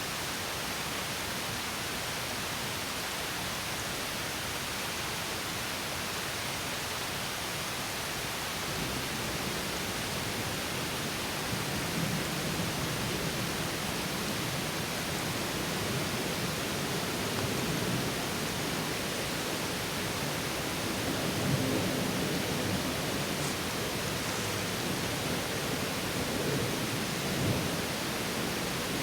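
Water from a small stream pouring over a mini waterfall, a steady rushing and splashing. About nine seconds in the lower splashing grows fuller, with small surges now and then.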